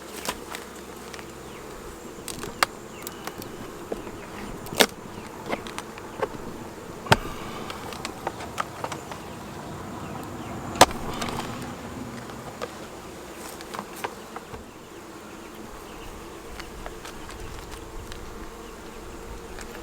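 Honeybees buzzing steadily around an open hive, with scattered sharp clicks and knocks throughout; the loudest knock comes about eleven seconds in.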